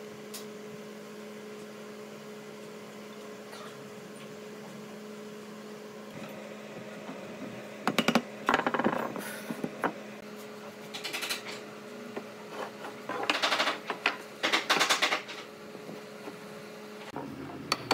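Wooden frame parts and steel pipe clamps being handled on a workbench: several short clusters of clattering knocks and rattles, over a steady low hum that stops near the end.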